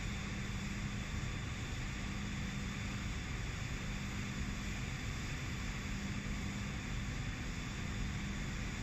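Steady drone of running sludge-dewatering machinery, with a constant low hum under an even hiss.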